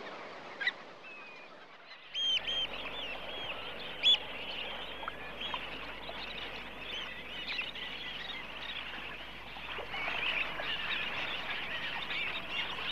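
A large flock of waterbirds calling, many short high calls overlapping one another over a steady hiss. The calling is sparse for the first two seconds, then thick and continuous.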